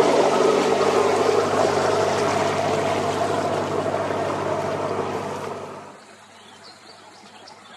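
Motor boat engine running steadily with the rush and churn of water, dropping away sharply about six seconds in.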